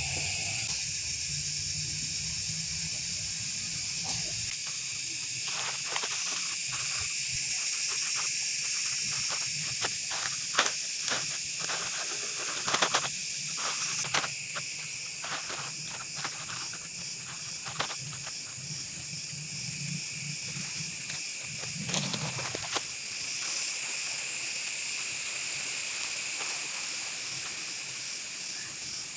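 Steady high-pitched drone of insects, with irregular scrapes, crackles and rustles of soil and plastic polybags as gloved hands scoop potting mix into them.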